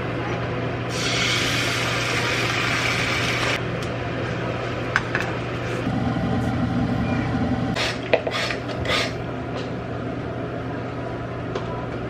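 Dried baby anchovies in a hot nonstick pan: a sizzling hiss for a couple of seconds as a spoonful of mirin goes in, then dry rustling and a few scraping strokes in the pan, over a steady low hum.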